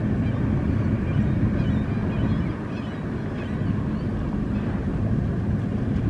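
Steady low rumble of wind on the microphone over the distant running of the Liebherr P996 backhoe dredger's machinery.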